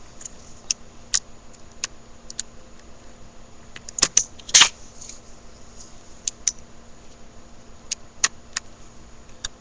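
Small plastic clicks and taps as the seats are worked off a toy playset's swing, scattered and irregular, with a louder cluster about four seconds in. A faint steady hum runs underneath.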